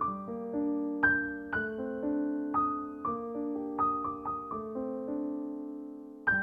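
Slow background piano music: notes and chords struck about once or twice a second, each ringing and fading, with one chord held and left to die away before a new one comes in near the end.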